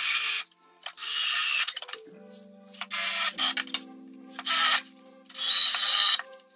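Power tool working the sheet metal of a BMW E30's spare-wheel well in short bursts, five in all, over background music with sustained chords.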